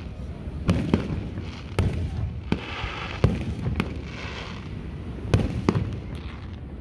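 Aerial fireworks shells bursting: about eight sharp bangs at uneven intervals, with a hissing crackle in the middle.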